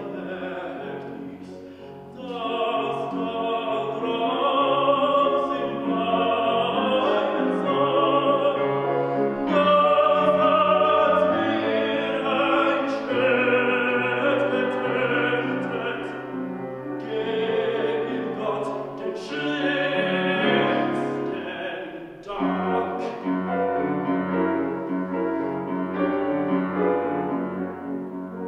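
Classical tenor singing a German art song with grand piano accompaniment, the voice pausing briefly between phrases.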